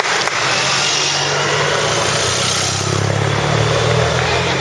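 Motor vehicle engines passing close by, rising about a second in, over a steady background of spectators clapping and cheering.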